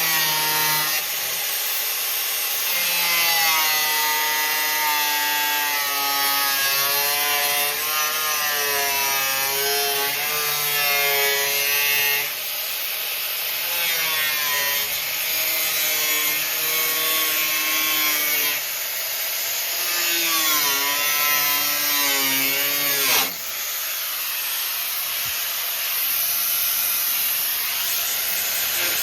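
Angle grinder with a cut-off wheel cutting steel tube: a continuous harsh grinding hiss over a motor whine whose pitch wavers and sags as the wheel is loaded. It eases off briefly twice, about 12 and 23 seconds in, then bites again.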